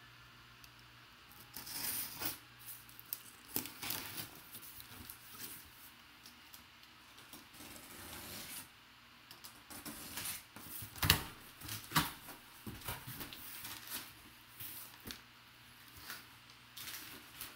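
Utility knife slitting packing tape on a sealed cardboard box and the cardboard flaps being pulled apart, in irregular scraping and tearing bursts, with brown kraft packing paper crinkling. The sharpest sounds come a little past the middle.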